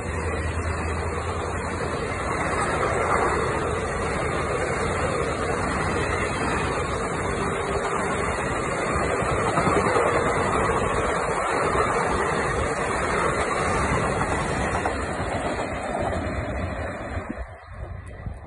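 Passenger coaches of an express train running past at speed, a steady noise of wheels on rails. The sound falls away about 17 seconds in as the last coach goes by.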